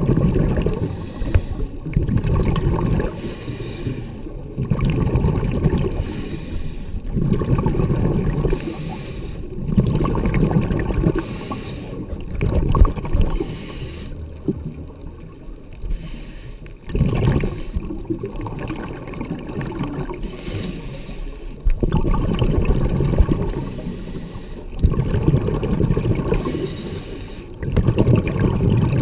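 Scuba diver breathing underwater through a regulator: bursts of exhaled bubbles rumbling and gurgling, alternating with the short hiss of each breath in, a breath every two to three seconds.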